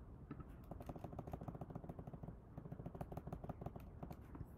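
Faint, rapid tapping on a computer keyboard's arrow keys: many quick clicks in a row as letters are nudged across the screen.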